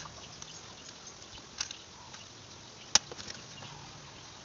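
A few sharp clicks and small taps from the hands and plastic case of a wall clock being handled at the centre of its face, the loudest click about three seconds in.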